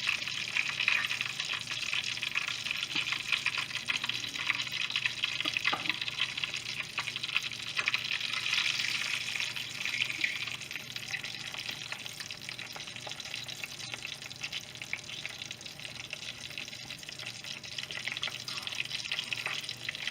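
Corn tortillas frying in hot vegetable oil in a pan: a steady sizzle full of small crackles and pops.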